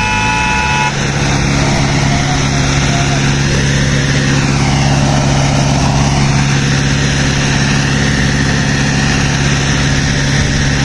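Sonalika tractor diesel engine running steadily under load while pulling a second tractor, stuck deep in mud, by rope. A horn sounds for about a second at the very start.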